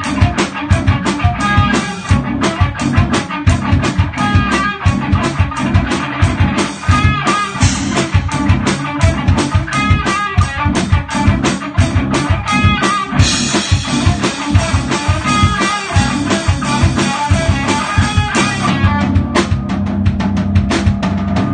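Progressive metal band playing: electric guitars over a busy drum kit with rapid, steady hits, cymbals washing through the middle.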